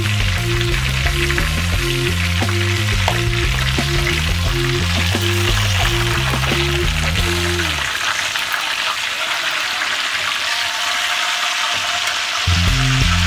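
Chicken pieces sizzling steadily in hot oil in a frying pan as they are turned with tongs. Background music with a repeating bass line plays under it, dropping out about eight seconds in and coming back near the end.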